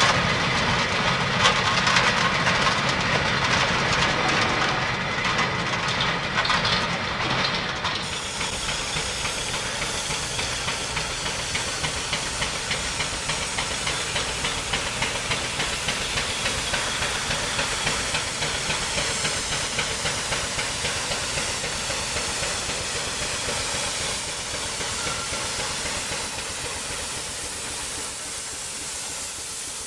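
A steam roller running as it moves away, then, after a cut about eight seconds in, a steam traction engine pulling a trailer approaches: a steady hiss of steam with a fast, regular exhaust beat, slowly getting quieter towards the end.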